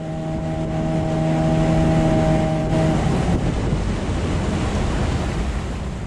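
Jon boat's outboard motor running under way, a steady hum with wind rushing over the microphone; about three seconds in the hum is lost under the wind noise.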